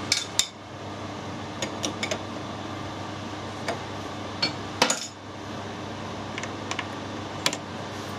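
Sharp metallic clinks and taps at irregular intervals, about a dozen, the loudest just after the start and about five seconds in, over a steady machine hum.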